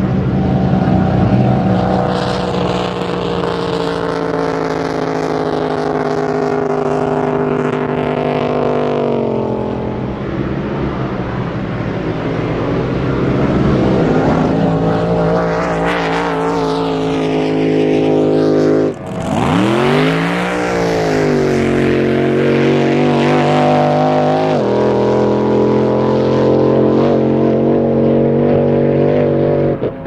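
Drag boat racing engines at full throttle during high-speed passes. The pitch drops as one boat runs off into the distance, and another boat sweeps past. After an abrupt break about two-thirds of the way in, an engine climbs in pitch and holds a steady high run.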